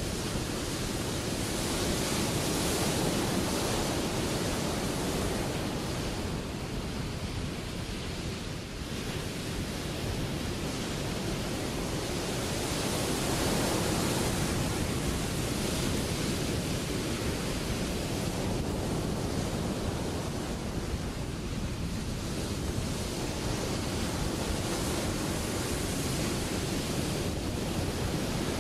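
Ocean surf breaking: a steady rushing roar of waves that swells and eases over several seconds.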